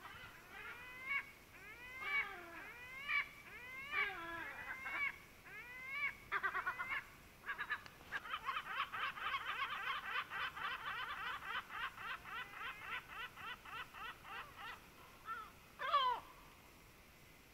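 Gull calling: a run of short cries that bend up and down in pitch, then a long fast series of notes, about four or five a second, lasting some seven seconds, and a single falling cry near the end.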